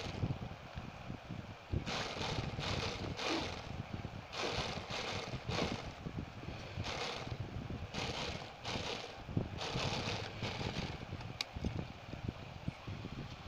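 Industrial sewing machine stitching fabric in a dozen or so short runs of about half a second each, over a low steady motor hum.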